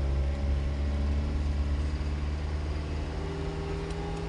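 Isuzu Panther engine running steadily as the car climbs a hill, a low drone whose tone shifts a little about three seconds in.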